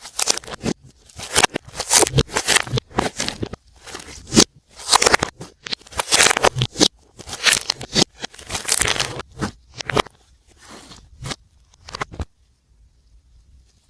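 Glossy slime being kneaded and stretched by hand, giving irregular sticky pops and crackles. The pops thin out about ten seconds in and stop shortly before the end.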